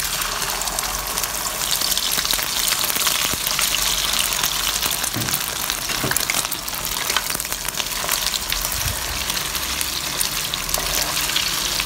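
Beaten eggs frying in hot oil in a wok, a loud, steady sizzle.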